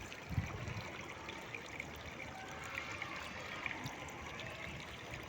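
Rainwater runoff trickling and flowing steadily through grass, with a soft thump about half a second in.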